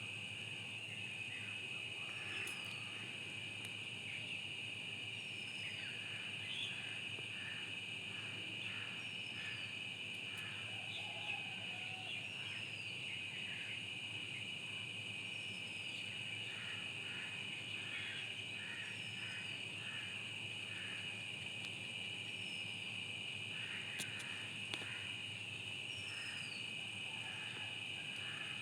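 Steady high-pitched insect drone, like crickets, with a bird repeating a short falling whistle about every two seconds and scattered chirps.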